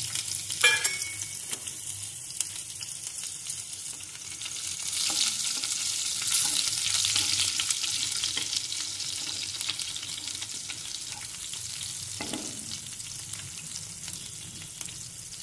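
Green chillies, garlic and cumin seeds sizzling in hot oil in a frying pan as they are tempered, stirred now and then. The sizzle swells a few seconds in and then eases off, with a knock about a second in and another near the end.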